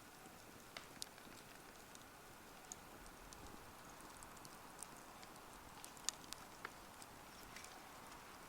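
Wood campfire crackling faintly: sparse, irregular sharp pops over a soft steady hiss, the loudest pop about six seconds in.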